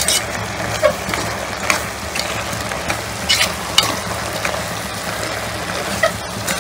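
Steel ladle stirring chicken pieces and spice powders in a pressure cooker, scraping and knocking against the pot a handful of times at uneven intervals over a steady sizzle of frying. The masala is being mixed in and fried before water is added.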